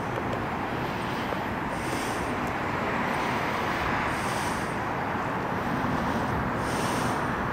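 Steady rush of road traffic, with a faint high hiss coming back about every two seconds.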